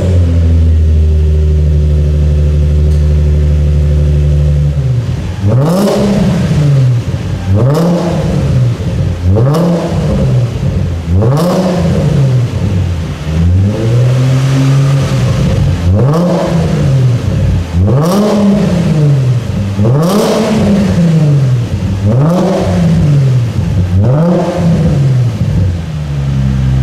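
Nissan 350Z 3.5-litre V6 running through a 3-inch straight-pipe catback with twin PowerFlow backboxes: a steady idle just after start-up, then blipped about a dozen times in a regular rhythm, each rev rising and falling in pitch.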